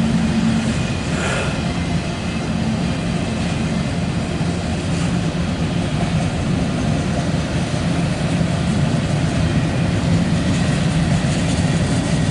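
Diesel freight locomotives running with a steady low drone.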